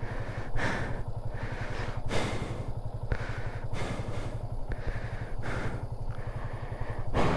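Hero Xpulse 200 4V's single-cylinder engine running steadily at low revs, its exhaust beat even throughout, with a whooshing noise swelling and fading about once a second.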